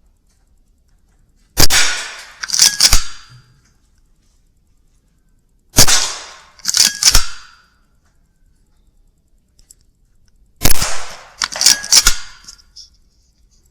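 Three shots from a Weihrauch HW100 .22 PCP air rifle, about four seconds apart, each a sharp crack followed about a second later by a quick cluster of metallic clicks.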